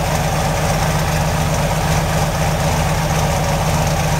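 Chevrolet 383 stroker V8 idling steadily, heard at the tailpipes of its dual exhaust with full-length headers and Hooker turbo mufflers. The engine is not yet fully warmed up and is still on the fast-idle cam.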